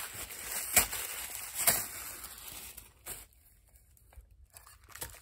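Packaging from a sensory advent calendar rustling and crinkling as the day's compartment is torn open, with two sharp snaps in the first two seconds; the handling stops about three seconds in and it goes almost quiet.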